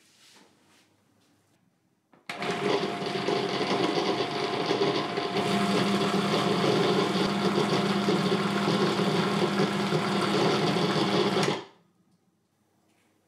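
Electric food processor running, its blade beating eggs into creamed butter and sugar. It starts about two seconds in, a deeper hum joins a few seconds later, and it stops abruptly near the end.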